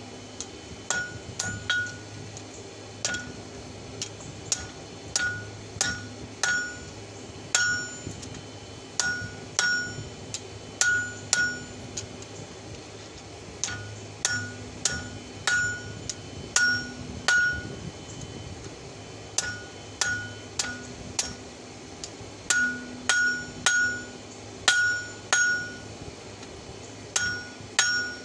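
Hand hammer forging the red-hot open end of an old wrench into fork tines on a steel anvil: sharp blows, each with a bright ringing note from the anvil, in quick runs of a few strikes broken by pauses of a second or two.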